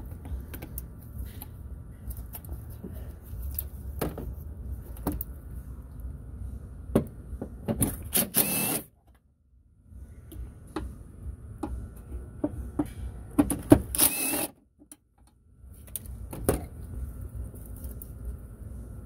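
Scattered clicks and knocks of hand tools and hands working on parts in a pickup's engine bay, over low handling rumble on the microphone. Two brief louder scrapes come about eight and fourteen seconds in, each followed by a moment of near silence.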